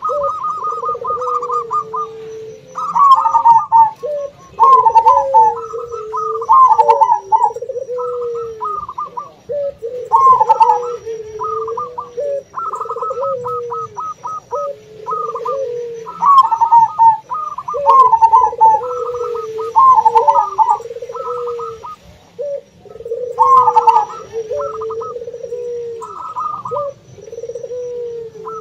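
Zebra doves (perkutut) cooing over and over, their quick stuttering phrases overlapping, with the lower, rounder coos of puter doves mixed in. The phrases come in bursts a second or two long with short pauses between.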